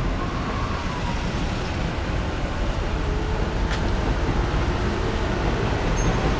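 Steady outdoor background noise, a low rumble with hiss like distant road traffic, with one short click about three and a half seconds in.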